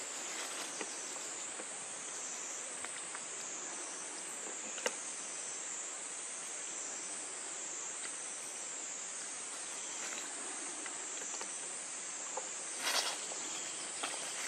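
A steady, high-pitched insect chorus that wavers gently in pitch, with faint scattered clicks and a brief rustle of dry leaf litter near the end.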